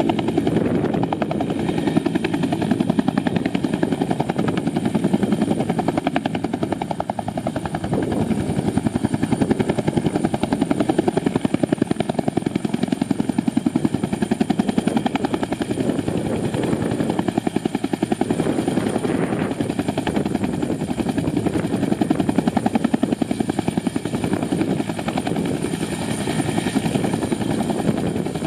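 Helicopter rotor running close by, a steady, loud, fast blade chop with the engine's whine above it.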